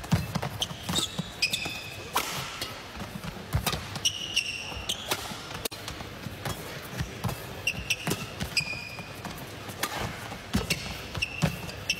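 A badminton singles rally on an indoor court: sharp racket strikes on the shuttlecock and footwork thuds, with frequent short, high-pitched shoe squeaks on the court mat.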